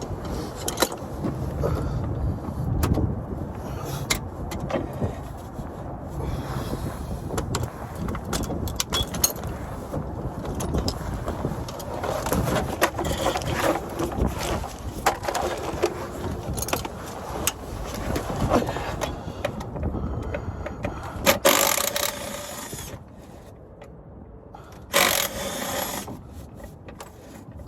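Wind rumbling on the microphone, with scattered clicks and scrapes of handling tools and parts; two louder, harsher scrapes come about three-quarters of the way through.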